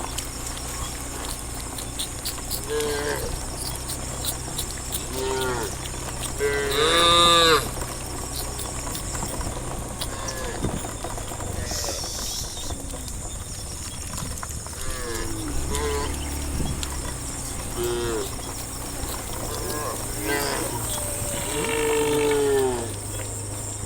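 Cows mooing, one call after another: the loudest comes about seven seconds in and a long drawn-out one near the end, over a steady low hum.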